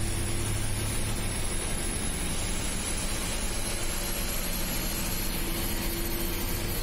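Steady engine drone and road noise heard from inside the cabin of a moving vehicle on a wet road, with a faint high whine slowly rising in pitch.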